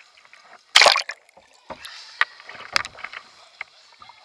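Water splashing and sloshing around a kayak as it tips over and is rolled back upright with a Greenland paddle. A loud splash comes about a second in, followed by smaller splashes and knocks of the paddle and hull.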